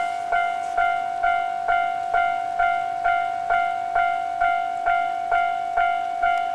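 Japanese railway level-crossing alarm ringing: an electronic bell strikes the same single tone over and over, about twice a second, each strike fading before the next.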